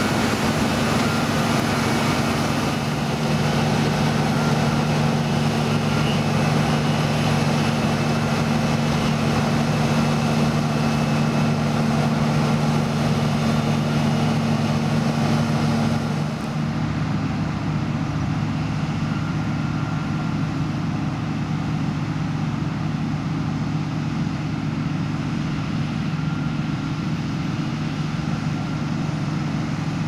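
New Holland CX5090 combine harvester working in a barley crop: a steady diesel engine drone mixed with the noise of its threshing machinery. About halfway through, the sound becomes a little quieter and duller.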